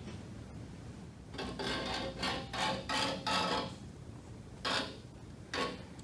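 A caliper's edge scratched against the mower deck's steel wheel bracket to scribe marks: a run of quick rasping strokes starting about a second in, then two more short strokes near the end.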